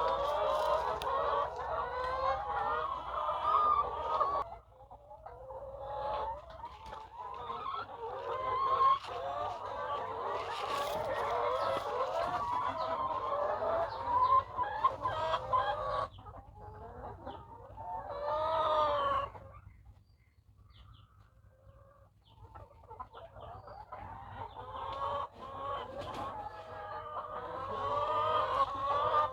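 A flock of laying hens clucking and calling together in a dense, overlapping chatter. It thins out briefly about five seconds in and again for a few seconds about two-thirds of the way through.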